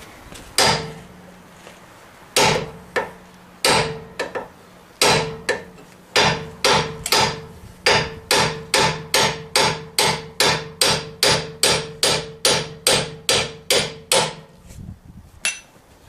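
Ball-peen hammer blows on steel, driving the old staked-in ball joint out of the lower control arm. A few spaced blows at first, then a steady run of about two and a half blows a second, each with a short metallic ring.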